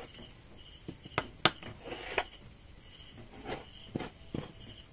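A wooden ruler being handled and laid down on a wooden table over fabric: a handful of light knocks and taps, with a short rustle of the mesh fabric being smoothed flat about two seconds in.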